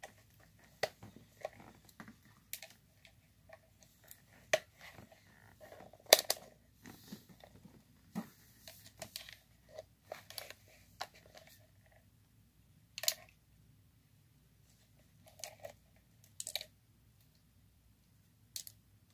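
Scattered clicks and rustles of a multimeter and its test leads being handled, the loudest click about six seconds in.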